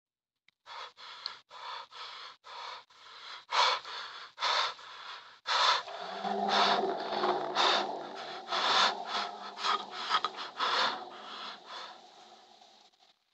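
Rapid, rasping breaths or gasps, about two a second at first, then louder and running together with a low hum underneath, fading out near the end.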